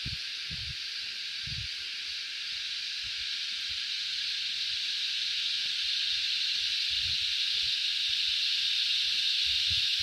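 Chorus of cicadas: a steady, shrill, high hiss that slowly grows louder, with faint low thuds underneath.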